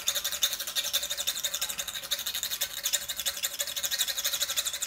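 Whole nutmeg being grated by hand over a cooking pot: a fast, even, continuous rasping.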